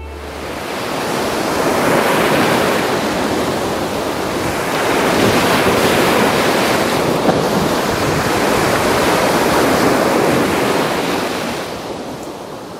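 Baltic Sea surf breaking and washing up a sandy beach: a steady rushing that swells and eases over several seconds, then fades out near the end.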